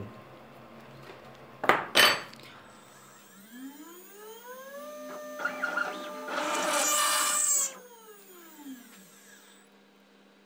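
Two sharp clicks, then a CNC milling spindle spinning up with a rising whine. It runs steadily for a few seconds, with a loud rushing stretch in the middle, and then winds down with a falling whine.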